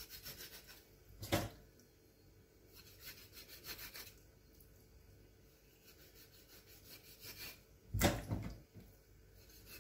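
Quiet, repeated scraping strokes in short runs. There is a louder knock about a second in and another, the loudest sound, near the end.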